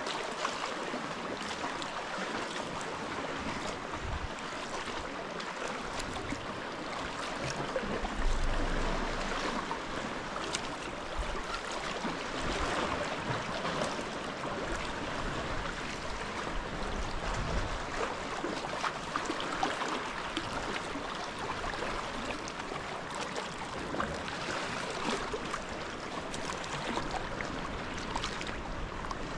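Water lapping and splashing around a sea kayak as it is paddled, with small waves washing against the rocks close by. A brief low rumble comes about eight seconds in.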